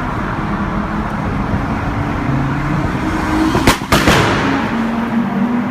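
Nissan Skyline R33's straight-six engine running with its exhaust, then two or three sharp exhaust bangs in quick succession a little over halfway through, as unburnt fuel ignites in the exhaust.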